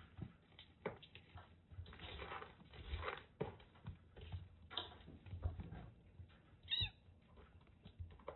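Kittens wrestling: quick scuffles, rustles and light paw pattering on a floor mat, with one short high meow from a kitten near the end.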